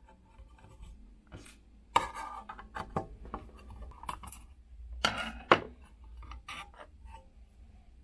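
A screwdriver turning out the screws of a Schiit Magni 3's aluminium case, making small scrapes and clicks. Sharper knocks of metal on metal come about two seconds in and twice around five seconds in, as the case and its cover are handled.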